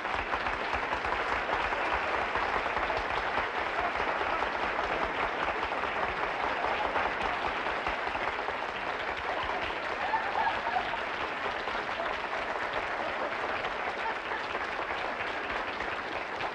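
Studio audience applauding in one long, steady round of clapping.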